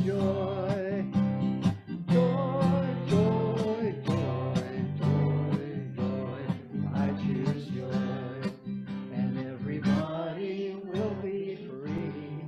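Acoustic guitar strummed in a steady rhythm with a voice singing along.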